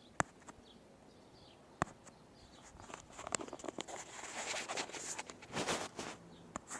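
Phone handling noise: two sharp taps, then from about three seconds in a few seconds of rubbing, rustling and clicking as fingers and cloth brush over the phone's microphone.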